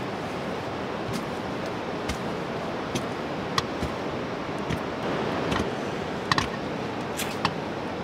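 Cooking on a wood-fire hearth: a steady hiss with irregular sharp crackles and clicks, a dozen or so, two close together a little past six seconds in.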